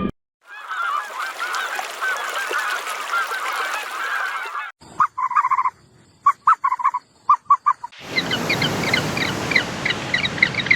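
Poultry calling in three short cuts. First a dense flock chorus of many overlapping calls, then a handful of separate short calls, then many quick, higher-pitched calls.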